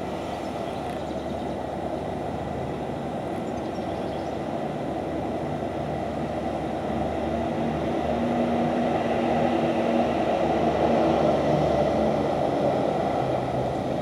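Steady city traffic rumble rising from the street below. It swells louder about eight to twelve seconds in, as a heavier vehicle passes, then eases off a little.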